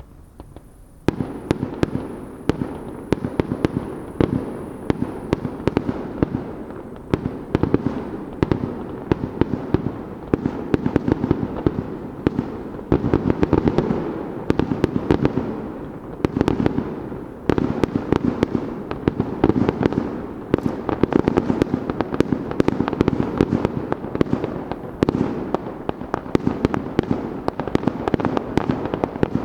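Fireworks display: a dense barrage of shells bursting begins about a second in, with rapid overlapping booms and crackles that keep going without a break.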